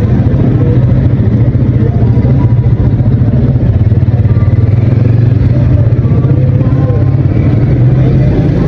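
An engine idling close by: a loud, steady low rumble that does not change in pitch.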